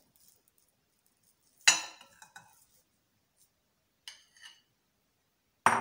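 Metal spoon and glass bowl clinking against a ceramic bowl as mashed boiled potato is scraped out: a sharp clink about a second and a half in with a few lighter taps after it, softer taps around four seconds in, and another sharp clink near the end.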